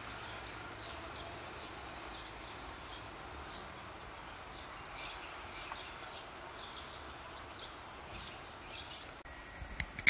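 Small wild birds calling: short high chirps, about two a second, over a steady outdoor hiss. Near the end the background drops away and a couple of sharp clicks follow.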